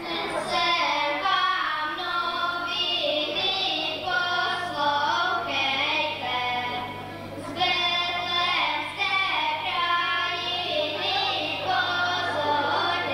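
Children singing a song together into a hand-held microphone, with a faint steady low hum underneath.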